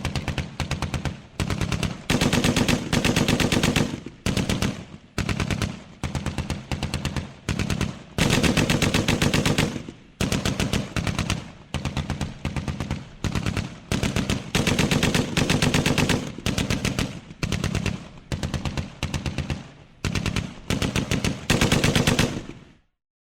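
Automatic gunfire: repeated machine-gun bursts of rapid shots, some short and some up to about two seconds long, with brief pauses between them. It stops abruptly just before the end.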